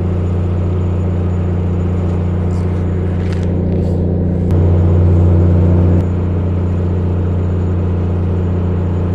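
A fishing boat's engine running steadily with a low hum, growing louder for about a second and a half near the middle.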